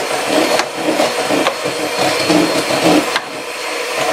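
Handheld electric mixer running steadily with its beaters in a plastic bowl, whipping cream. It drops a little in level about three seconds in.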